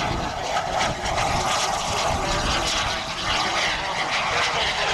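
Engines of a giant-scale radio-controlled model Avro Vulcan flying past: a steady, noisy jet rush with no distinct tone.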